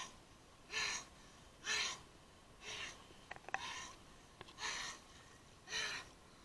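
A man panting hard, out of breath after a fast swim: six heavy gasping breaths about a second apart, with a few faint clicks in the middle.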